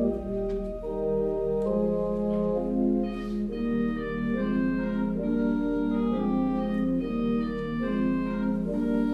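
Church organ playing a postlude: full sustained chords moving from one to the next every half second or so over a held low pedal note.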